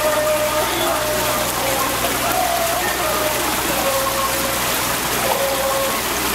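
Steady rush of water along the hull of a moving canal sightseeing boat, with a low steady hum underneath and snatches of indistinct voices.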